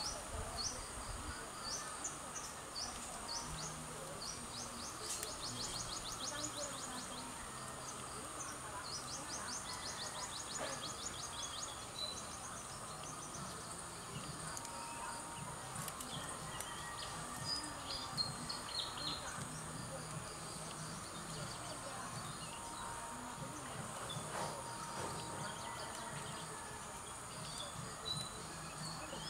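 A steady high-pitched insect drone with birds chirping and giving rapid trills over it. A couple of sharp clicks come a little after halfway.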